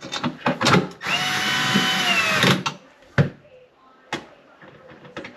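Power drill driving a screw: a steady motor whine for about a second and a half that sags slightly as it stops. Clicks and knocks from handling the screws and panel come before and after it.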